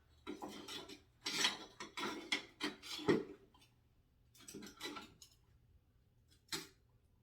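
A plant pot scraping and rubbing against a hard surface in several irregular bursts as it is shifted into place, the loudest about three seconds in.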